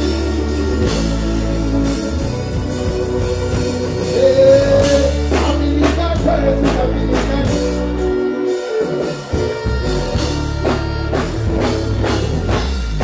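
Live band music through a concert sound system, with heavy held bass notes, drums and guitar.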